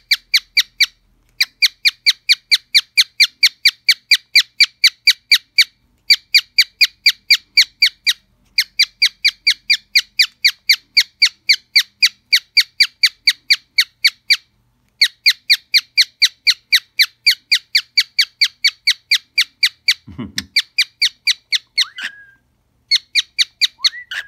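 Cockatiel chirping at its mirror, short high chirps repeated about four to five a second in long even runs with brief pauses. Near the end the run breaks up, with a short low sound and a couple of sliding whistle notes.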